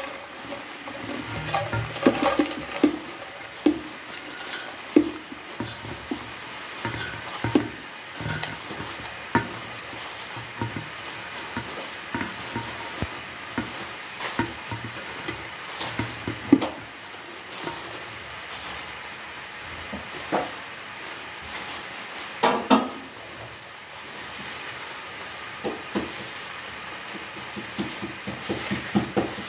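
Chopped greens being scooped by plastic-gloved hands from a plastic colander into a steel pot: rustling and crackling of the wet greens and gloves, with irregular light taps and knocks of the colander and pot.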